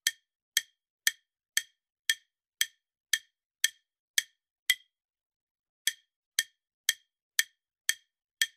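Quiz countdown timer tick sound effect: short wood-block-like clicks about two a second, pausing for just over a second midway before resuming.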